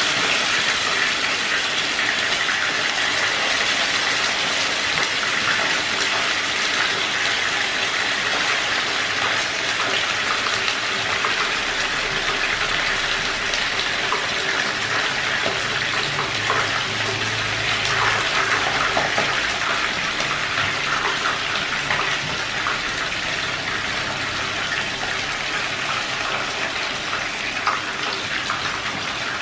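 Tuna pieces frying in hot cooking oil in a pan: a steady, loud sizzle with fine spattering crackles as pieces are lowered in, easing slightly toward the end.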